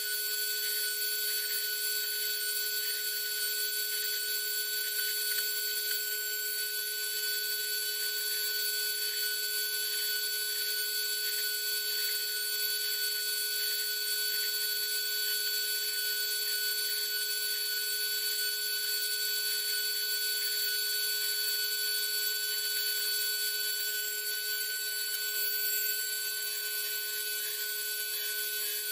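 Small power drill running steadily as it bores window holes in a plastic model's hull, a constant high-pitched whine with several tones.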